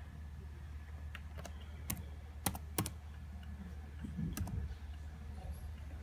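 Typing on a laptop keyboard: a handful of separate key clicks, unevenly spaced, over a steady low hum.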